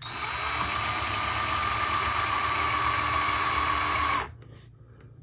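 Electric drill motor running at a steady speed, spinning a bundle of hookup wires clamped in its chuck to twist them together; it starts suddenly and stops about four seconds in.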